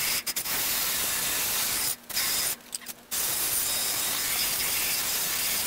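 Cordless drill spinning an abrasive attachment against a freshly welded steel patch panel, grinding down the weld beads and cleaning off the weld debris: a harsh, even hiss that stops briefly about two seconds in, runs a moment, stops again for half a second, then carries on steadily.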